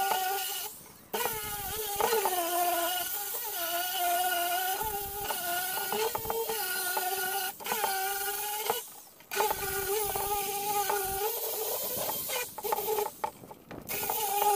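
Electric disc sander-polisher with a 36-grit disc sanding paint off a flat metal-framed surface. Its motor gives a steady whine that sags and wavers in pitch as it is pressed into the work. It cuts out briefly about a second in and again around nine seconds.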